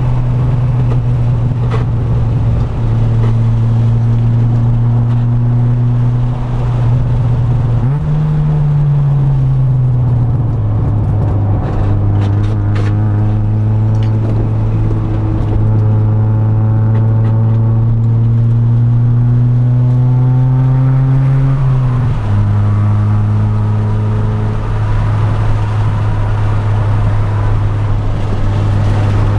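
Honda B20 VTEC four-cylinder engine under hard acceleration, heard from inside the cabin. The engine note jumps and then falls away through a gear change about eight seconds in, climbs steadily in pitch for about ten seconds, and drops suddenly at an upshift a little over twenty seconds in.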